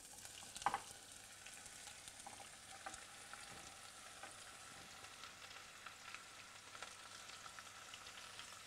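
Sliced bell peppers and onion sizzling faintly in hot olive oil in a saucepan as they are dropped in by hand, with a soft knock a little under a second in.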